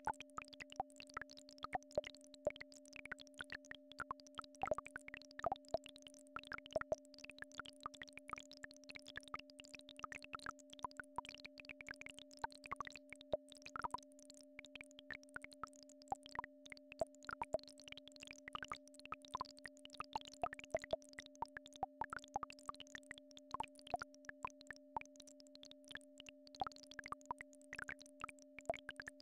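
Synthesized healing-frequency track: two steady pure tones, a low one and a higher one roughly an octave above, held unchanging, with a scattering of soft irregular plinks and clicks over them.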